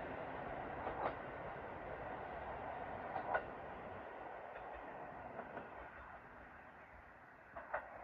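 Diesel railcar running along the track and fading away. Wheels clack over rail joints about a second in, again about three seconds in, and twice near the end.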